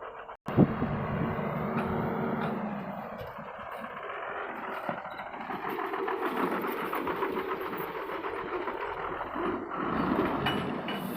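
Heavy diesel engine running, its loudness rising and falling, with a sharp clank about half a second in.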